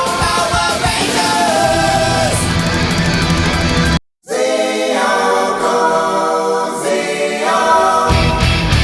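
Background rock song with sung vocals. It cuts out for a moment about halfway through, comes back with only voices and lighter backing, and the full band with bass and drums returns near the end.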